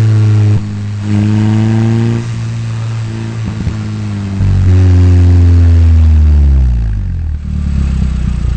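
Engine of a KTM X-Bow, an Audi 2.0-litre turbocharged four-cylinder, heard from the open cockpit while driving: steady pulls broken by short drops in loudness, then the pitch falls as the car slows near the end, settling to a low uneven rumble.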